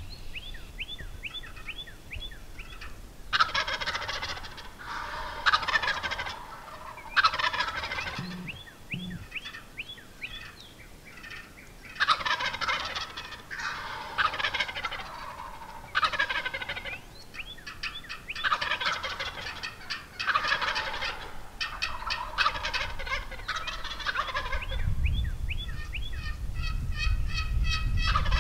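Wild turkey toms gobbling again and again, about a dozen loud, rattling gobbles, some close together. Between them are runs of quicker, higher turkey yelps.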